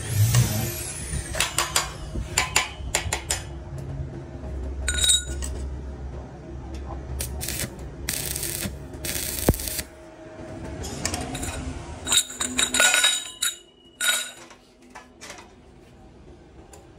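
Stick welding on a steel tube frame: the arc crackles and sputters in several spells, and between welds the steel tubes clink and tap as they are set and held in place.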